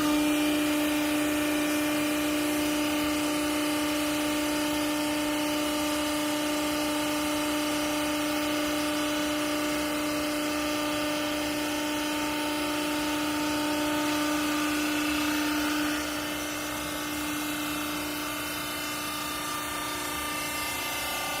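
Hydraulic clothes baler running, with a steady pitched whine from its hydraulic power unit. The whine starts with a click and stops about 16 seconds in, leaving a lower steady machine hum.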